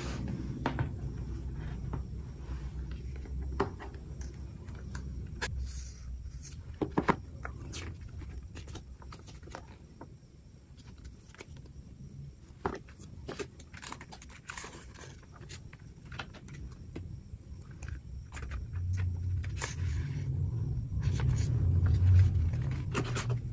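Hands handling an Apple iPad Air box and its paper inserts: scattered light taps, clicks and paper rustles over a low rumble, with heavier handling noise near the end.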